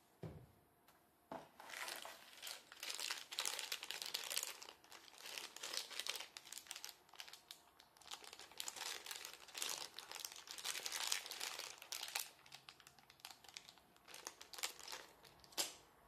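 Small clear plastic bag of spare keycaps crinkling as it is handled, a dense, irregular crackling with a sharp snap near the end. A single soft thump comes right at the start.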